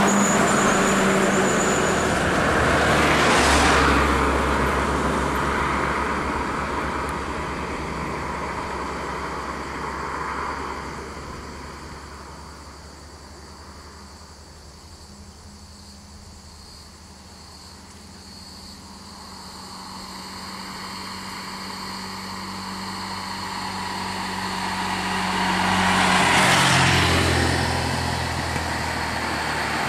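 Road traffic: motor vehicles passing close by, one about three to four seconds in and another about three seconds before the end, with a quieter lull between as the engine noise dies down and builds again.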